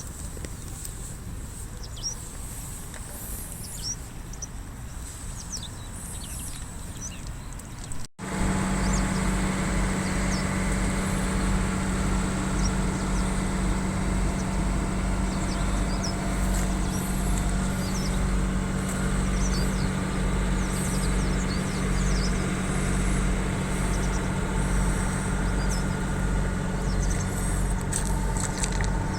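Birds chirping. About eight seconds in, after an abrupt cut, a steady low mechanical hum like an engine running joins them and continues under the chirps.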